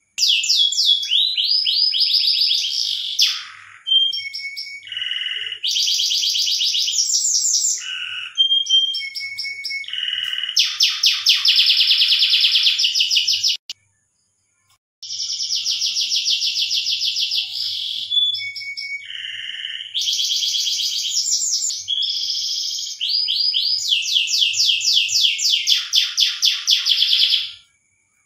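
Domestic canary singing: long runs of rapid trills and repeated phrases, breaking off for a second or so about halfway through before resuming.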